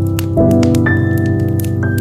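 Slow keyboard music: sustained chords, a new chord about half a second in, and single higher notes held over it. Small, sharp pops of burning wood crackling run underneath.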